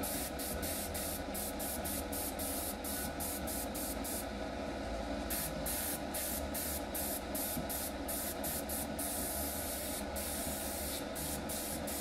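Airbrush spraying paint, a steady hiss of air and paint with many brief breaks, as road stripes are touched up through masking tape on a model road.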